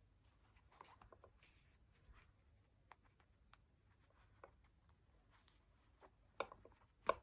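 Faint scratchy rustling and small ticks of a needle and thread being pulled through fabric by hand, with two sharper clicks near the end.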